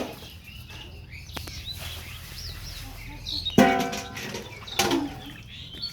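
Small birds chirping over a steady low hum, with a loud, short pitched call about three and a half seconds in and a fainter one about a second later.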